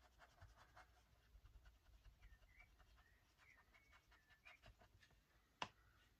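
Near silence with faint, scratchy strokes of a paintbrush on paper, and one sharp click near the end.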